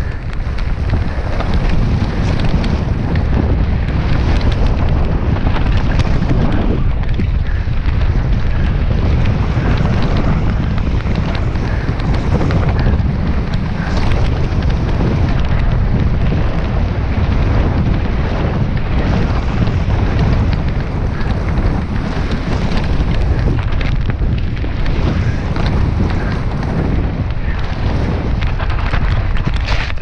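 Wind buffeting the microphone over the rumble of a mountain bike riding fast down a downhill trail, with many short knocks and rattles from the bike over the ground.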